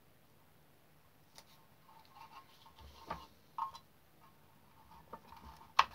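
Light clicks and taps of a plastic battery holder and its wires being handled and pressed into place, with one sharper click near the end.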